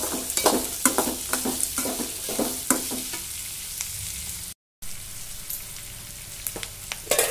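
Onions, peanuts and green chillies frying in oil in a metal kadai, with a slotted steel spatula scraping and clicking against the pan for about the first three seconds. After that the sizzle carries on steadily and more quietly on its own, with one brief silent break a little past the middle.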